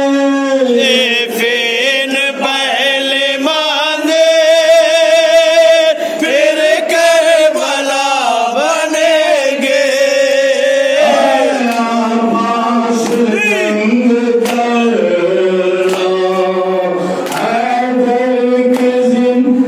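Male voices chanting a noha, a Shia lament, in a slow, wavering melody, with a lead reciter and others joining in. Sharp slaps from hands striking chests (matam) are heard now and then.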